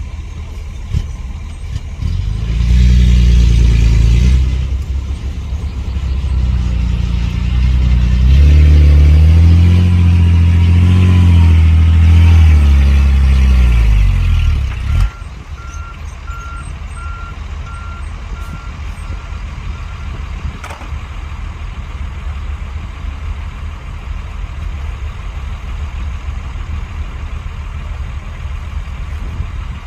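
Heavy diesel engine of earthmoving machinery revving hard twice, the second time for several seconds with the pitch rising and falling under load. It drops suddenly to a low steady rumble about halfway through. A reversing alarm beeps steadily in the middle.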